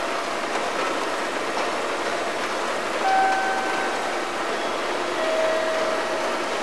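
Railway station platform ambience between announcements: a steady wash of train and platform noise, with a brief steady tone about halfway through and another near the end.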